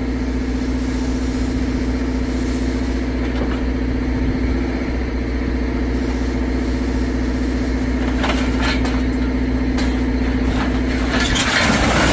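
Heavy machinery engine running steadily while a scrap claw unloads scrap metal; metal clanks and scrapes begin about eight seconds in and are loudest near the end.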